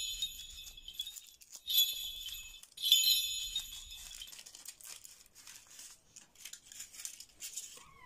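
Sleigh-bell jingle sound effect, in three bursts over the first four seconds. After it, a foil candy wrapper crinkles more quietly as it is peeled off a chocolate ball.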